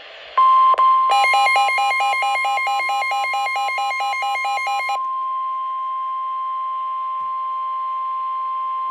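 NOAA Weather Radio warning alarm tone: a steady, loud, single high tone near 1 kHz (the 1050 Hz alert tone) that starts just under half a second in and holds. It signals that a warning broadcast is coming and sets off alert receivers. For about four seconds a second, rapidly pulsing beep, about four or five pulses a second, sounds over it.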